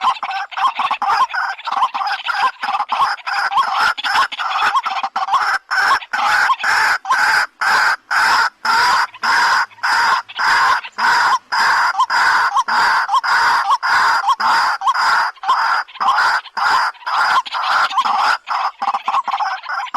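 White-breasted waterhen (dak pakhi) calling: a loud, unbroken series of repeated calls, about two to three a second.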